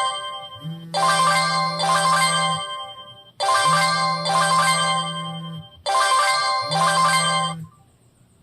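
Downloaded ringtone playing through a Samsung GT-E2121L mobile phone's speaker for an incoming call: a short two-part melodic phrase over a steady low tone, repeating about every two and a half seconds. It stops shortly before the end.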